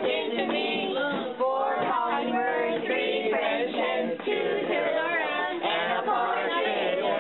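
A group of voices singing together.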